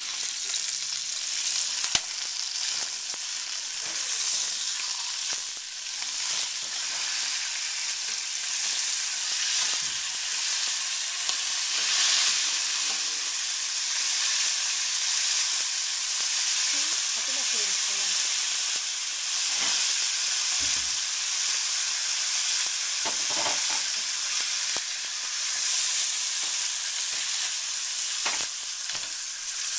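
Veal shanks sizzling steadily as they sear in hot oil in a stainless-steel sauté pan. A few sharp clicks of metal tongs against the pan as the pieces are turned and lifted out.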